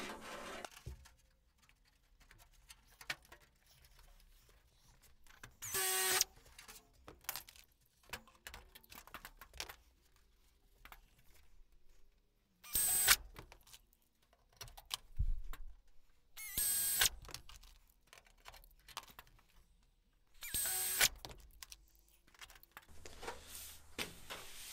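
Pneumatic air drill running in four short bursts of about a second each with a high whine, drilling holes through the aluminium wing skin. Between the bursts come light metallic clicks and taps from handling clecos and the sheet.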